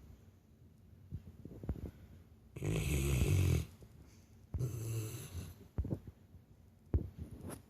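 Labrador retriever snoring like a person. Two loud snores, each about a second long and about two seconds apart, with short faint snorts in between.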